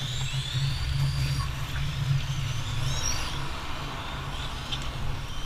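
Electric motors of 1/10-scale RC Formula 1 cars whining on track, several high whines rising and falling in pitch as the cars accelerate and brake, over a steady low hum.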